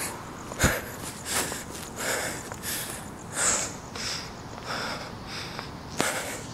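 A man breathing hard close to the microphone after a sprint, with quick breaths about three every two seconds. A sharp knock comes about half a second in and another near the end.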